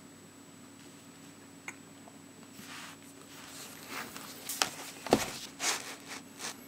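Spiral-bound sketchbook being handled and turned round on the desk: a run of paper rustles and scrapes, the loudest about five seconds in, over a faint steady hum.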